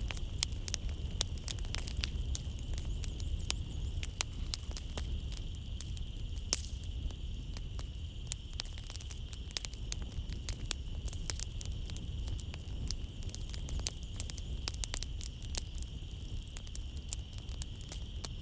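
Wood fire in a fireplace crackling and popping in dense, irregular snaps over a low rumble of flames. A steady high-pitched chirring of night insects runs underneath.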